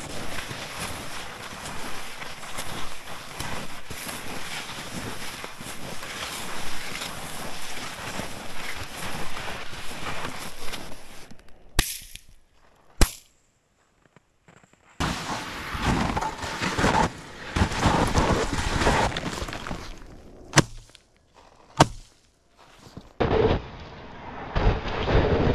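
Skis sliding over snow with wind on the microphone, then two shotgun shots about a second apart, about 12 s in. A second pair of shots, spaced the same way, comes about 21 s in.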